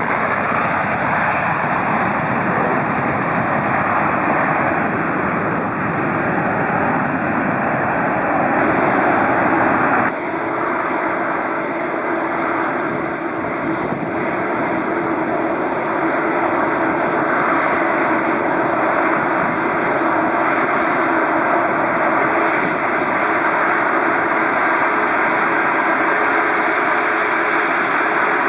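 Jet airliner engines running, a loud steady rushing noise. The sound changes abruptly about ten seconds in, and a steady hum joins it from then on.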